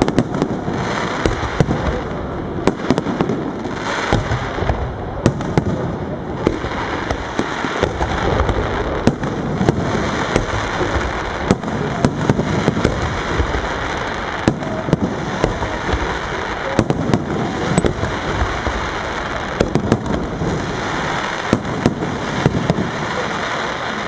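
Aerial firework shells bursting in a dense, continuous barrage: many sharp bangs at irregular intervals over an unbroken rumble of overlapping bursts.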